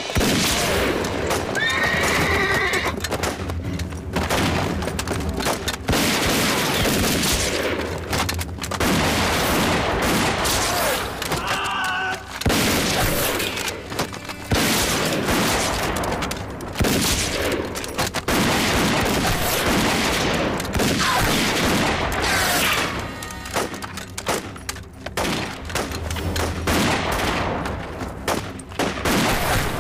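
Battle sounds: rifle shots and scattered gunfire throughout, with horses whinnying now and then, over a dramatic orchestral score.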